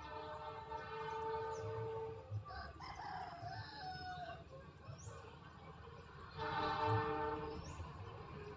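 Distant locomotive horn of the Argo Bromo Anggrek train: a steady chord-like blast of about two seconds, then a second, shorter blast later on. Between the two blasts a rooster crows.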